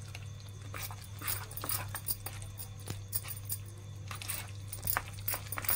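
A metal spoon scraping and clicking against a stainless steel bowl in irregular strokes while stirring thick chilli pickle paste with spice powder. A steady low hum runs underneath.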